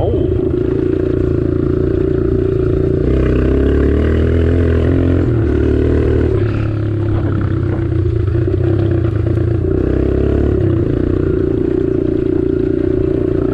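Kawasaki KLX140 dirt bike's single-cylinder four-stroke engine running while riding, heard from on board. Its pitch shifts up and down with the throttle through the middle stretch, then settles back to a steady note.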